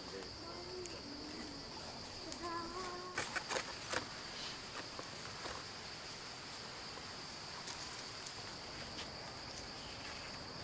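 Steady, high-pitched drone of insects, with a few sharp clicks about three to four seconds in.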